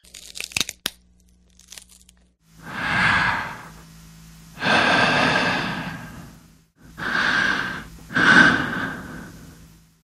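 Horror sound effect: a burst of sharp crackles, a few faint clicks, then four long hissing swells, each rising and fading away, over a low steady hum.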